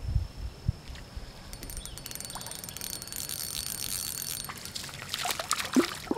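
A few light knocks in the canoe, then a hooked redear–bluegill hybrid sunfish splashing at the surface beside the boat as it is pulled in.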